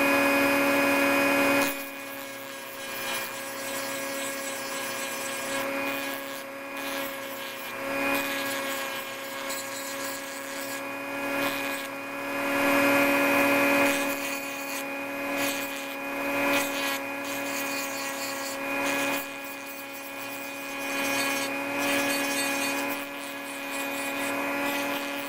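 Dremel rotary tool on its lowest speed, running with a steady whine while its sanding drum grinds lightly against a plastic puzzle piece, taking excess plastic weld off the face. The grinding swells and fades as the drum is pressed and eased off, loudest at the very start and again about halfway through.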